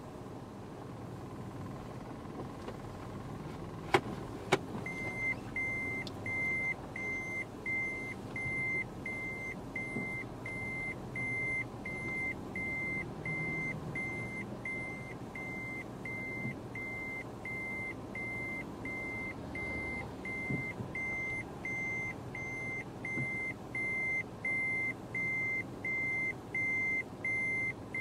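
Vehicle's electronic warning beeper: a steady high beep repeating about twice a second, starting just after two sharp clicks, over a low vehicle rumble.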